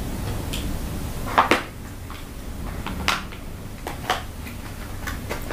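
Cardboard tablet box and its inner tray being handled during unboxing: a handful of light knocks and clicks, the loudest about a second and a half in.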